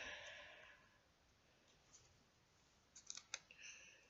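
Mostly near silence, with a quick run of faint sharp clicks about three seconds in: small plastic Lego minifigure pieces and packaging being handled.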